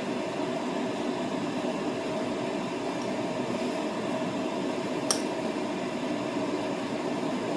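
Steady sizzle of an alcapurria deep-frying in a skillet of oil, under a steady room hum. A metal spoon clinks once against a ceramic bowl about five seconds in, as meat filling is scooped.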